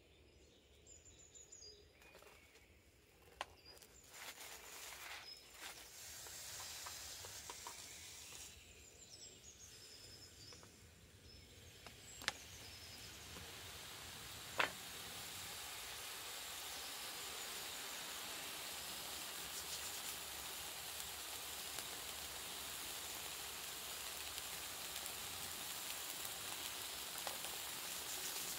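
A raw beef burger patty frying in a small pan on a spirit stove. It starts to sizzle about halfway through, after a couple of sharp clicks, and the hiss builds and then holds steady. A few faint bird chirps come early on.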